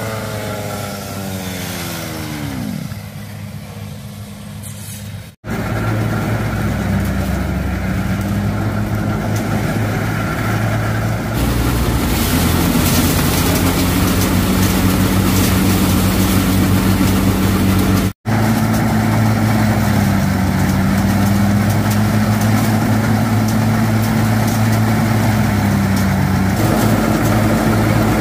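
A brush cutter's small engine with its revs falling away. About five seconds in, a mini rice thresher's engine takes over, running steadily, with a louder hiss of threshing joining about eleven seconds in.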